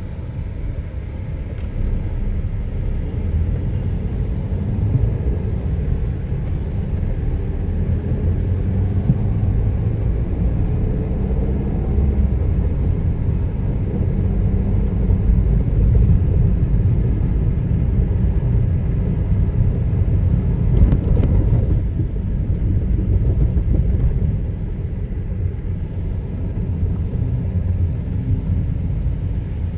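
Steady low rumble of a moving vehicle's engine and road noise heard from inside the cabin, swelling briefly louder about two-thirds of the way through.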